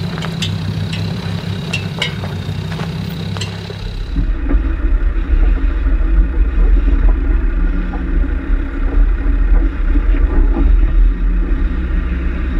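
A 4WD crawling slowly down a rocky track: engine running low with scattered sharp clicks of stones under the tyres. About four seconds in the sound changes abruptly to a heavy low rumble heard from on board the moving vehicle.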